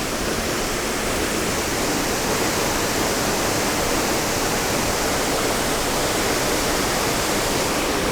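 Middle North Falls, a waterfall, pouring down: a steady rush of falling water that goes on without a break.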